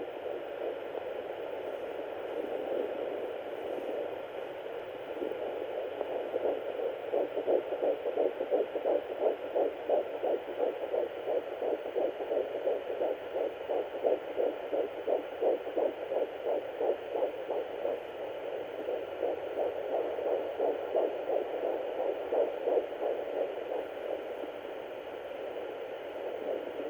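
Fetal Doppler monitor hissing and whooshing, with a fast, even pulsing through the middle: a fetal heartbeat at 8 weeks 5 days, much faster than the mother's own.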